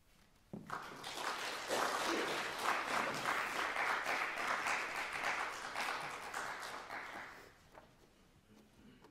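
Audience applauding at the end of a recital piece. The clapping starts about half a second in, swells, then dies away near the end.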